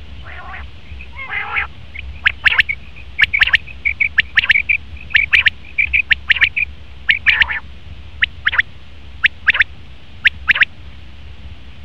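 Male common quail calling: a couple of low, wheezy notes, then repeated short phrases of two or three sharp, clipped notes.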